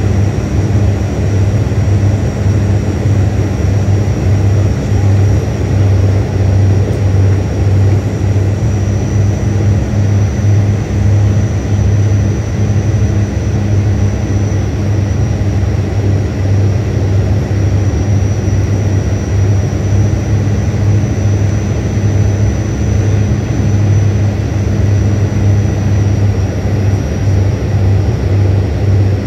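Cabin noise of a turboprop airliner on its landing approach: the propellers' deep, steady hum under a constant rush of air, with a faint high whine.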